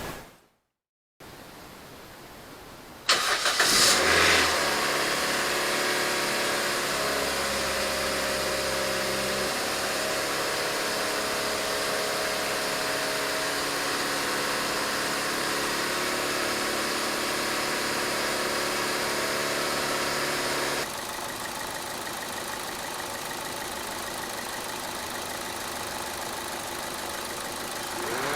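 Toyota Vios engine starting with a sudden burst of noise about three seconds in, then idling steadily. The level drops a step about two-thirds of the way through.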